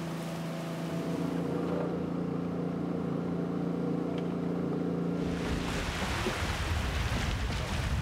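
Small boat's outboard motor running at a steady pitch for about five seconds, then it gives way to a steady rush of wind and water.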